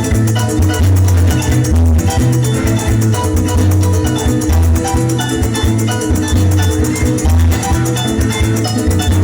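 Instrumental joropo music: a llanera harp and other plucked strings over a deep bass line, with maracas shaking a fast, even rhythm.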